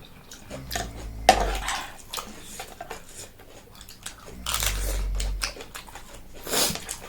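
Close-miked eating sounds: chewing and biting, with a sharp click a little over a second in and a few louder noisy stretches later on.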